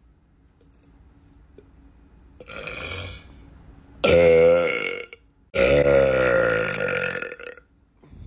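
A young man burping loudly twice: a short burp about four seconds in, then a longer drawn-out one of about two seconds, with a fainter breathy sound a little before them.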